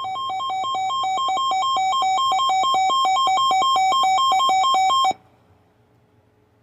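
Electronic emergency alert tone that switches rapidly back and forth between two pitches, growing louder and then cutting off abruptly about five seconds in. It is the attention signal ahead of a weather warning broadcast.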